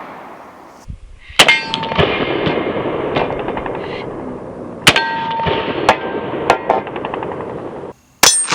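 Three .45 ACP pistol shots from a Glock 21, a few seconds apart. Each is followed by the clang of a steel target being hit, ringing and fading over a couple of seconds.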